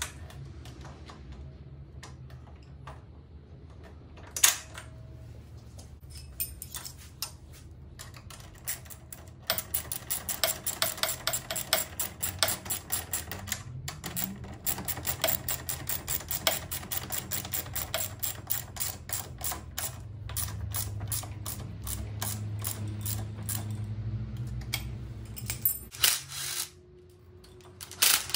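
Hand ratchet wrench clicking in a long run of rapid, even clicks as the nut on the front shock absorber's mounting bolt is tightened, with a single sharp knock about four seconds in and a few knocks near the end.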